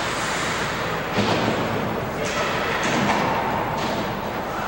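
Ice hockey game sounds: a single thud about a second in, then a few sharp scrapes and knocks from skates and sticks on the ice.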